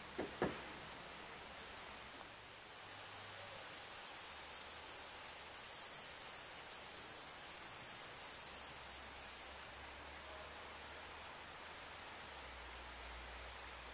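A high-pitched insect drone that swells about three seconds in and fades away after about nine seconds.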